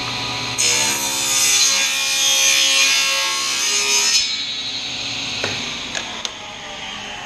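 Table saw ripping a board to width for about three and a half seconds, the blade cutting through the wood loudly. Then the saw runs free and starts to wind down, its pitch slowly falling.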